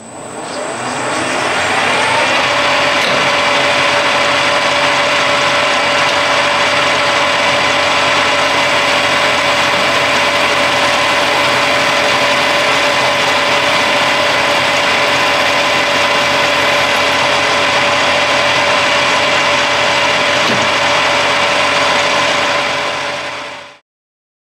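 1982 Colchester 1800 manual lathe running steadily, with a steady whine, while a parting tool cuts off a small tellurium-copper part. The sound rises over the first couple of seconds and stops abruptly near the end.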